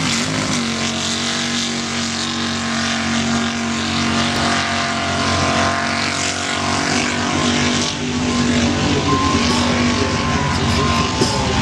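Mud megatruck's engine running hard at steady high revs as the truck plows through a mud bog, with a brief dip about eight seconds in.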